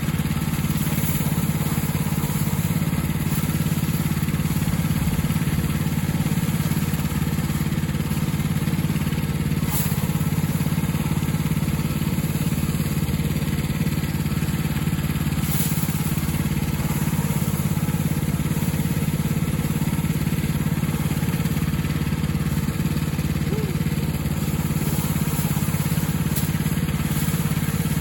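An engine running steadily at a constant speed, a low even hum that neither revs nor slows.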